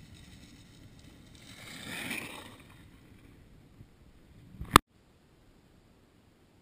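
A snow sled sliding over packed snow: a swishing rush that swells to its loudest about two seconds in and then fades. Near the end comes one sharp, loud knock as the camera is jolted, and after it only a faint hiss.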